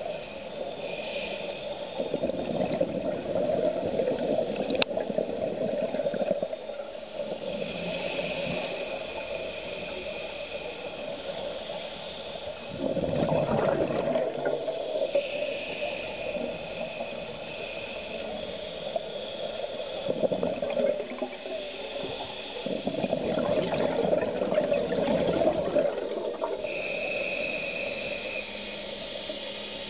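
Scuba diver breathing underwater through a regulator: hissing intakes alternate with longer bursts of bubbling exhalation, a cycle of roughly eight to ten seconds.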